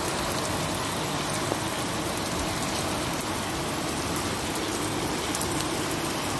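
Hail and rain falling on a flat, wet rooftop terrace: a steady, dense hiss scattered with many small sharp ticks of hailstones striking the floor.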